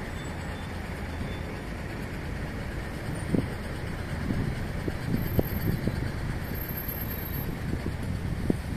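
Steady city traffic noise from a nearby road, a low continuous rumble with a few short thumps mixed in.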